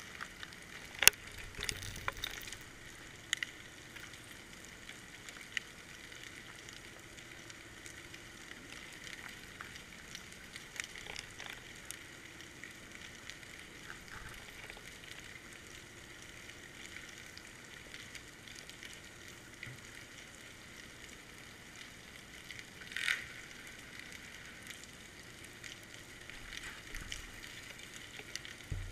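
Faint underwater crackle and hiss heard through a GoPro's waterproof housing hanging on a fishing line, with scattered sharp clicks, a cluster of them about a second in, and one louder brief swell about three-quarters of the way through.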